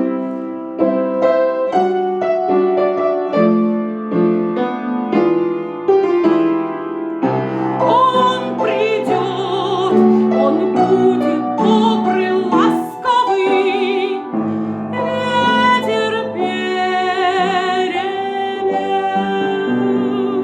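Instrumental music. A piano plays a gentle melody alone for about seven seconds, then a fuller accompaniment joins with a deeper bass and a high melody that wavers in pitch.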